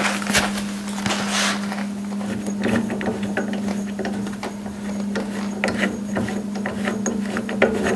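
Irregular clicks and metal rubbing from the carriage and cross slide of an unpowered mini metal lathe being worked by hand, over a steady low hum.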